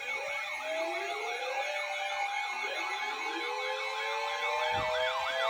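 Several electronic sirens sounding together. One yelps in fast rise-and-fall sweeps, about three to four a second, over slower wailing sirens whose pitch climbs and falls over a few seconds.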